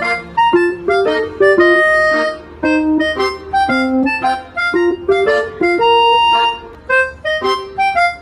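Background music: an instrumental tune of quick pitched notes, some held longer, with no speech over it.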